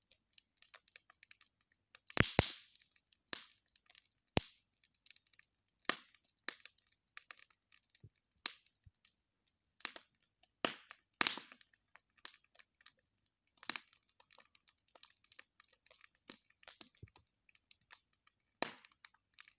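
Wood bonfire crackling, with irregular sharp snaps and pops at uneven spacing and a few louder pops, the loudest about two seconds in.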